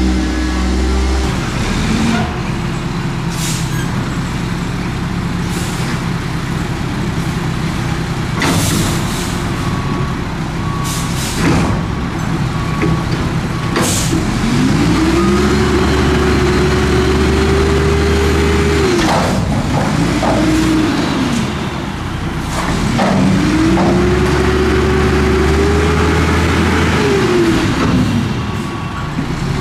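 Front-loader garbage truck's diesel engine idling, with a few sharp air-brake hisses in the first half. The engine then revs up and holds high twice, several seconds each time, driving the hydraulic forks as they lift a waste container up over the cab.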